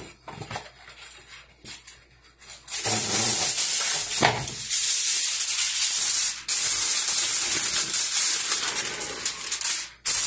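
Aluminium foil being pulled off the roll and handled: a loud, dense crinkling rustle starting about three seconds in, with a short pause midway.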